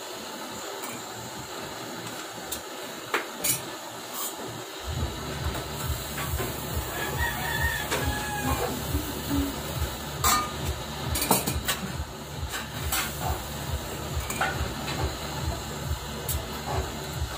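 Steady hiss of a gas blowtorch flame, with sharp clicks and crackles scattered through. From about five seconds in, a fast low pulsing joins it, and a rooster crows near the middle.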